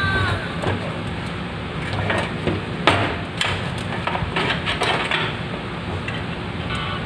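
Irregular metallic clanks and clicks of an electric stove's sheet-metal top panel, with its switches and wiring attached, being lifted and knocked against the stove's metal body, the loudest knock about three seconds in.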